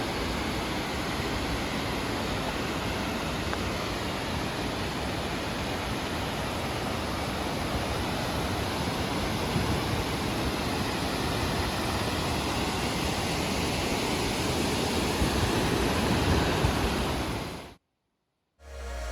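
Steady rushing of a large waterfall, an even wash of falling water that fades out near the end.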